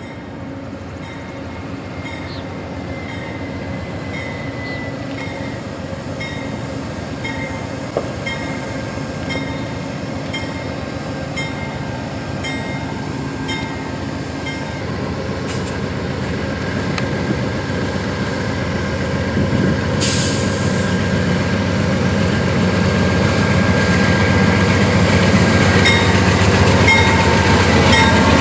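A train rolling along the rails, growing steadily louder as it comes closer. Regular clicks about once a second and a thin, steady squeal ride over the rumble.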